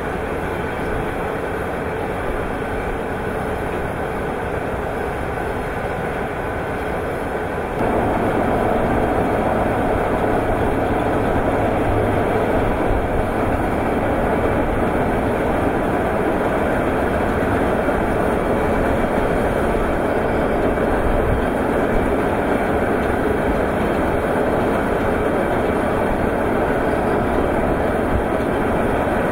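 Bucket-wheel excavator at work, its wheel turning and digging into an iron ore pile: a steady mechanical rumble and rattle, louder from about eight seconds in.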